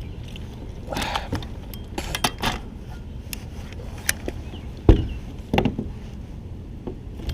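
Handling noises in a kayak: scattered short knocks and clicks over a low rumble, the loudest knock about five seconds in.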